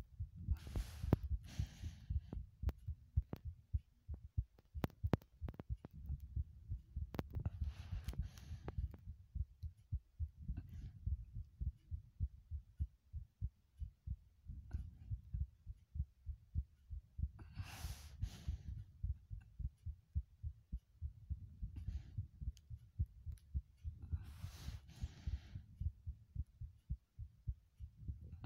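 Heartbeat thudding in a steady low rhythm, with a few brief soft hisses over it now and then.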